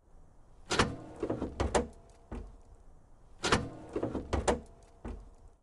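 Truck cab door sound effect played twice: a sharp latch click followed by a few quicker clunks and a low thud. The same sequence repeats about two and a half seconds later.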